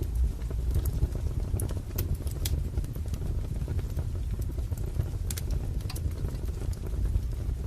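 Wood fire crackling: irregular sharp crackles and pops over a steady low rumble of burning logs.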